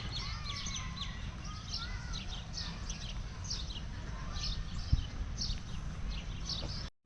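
A flock of small birds chirping busily in quick, downward-sliding notes, over a steady low rumble. There is one sharp knock about five seconds in.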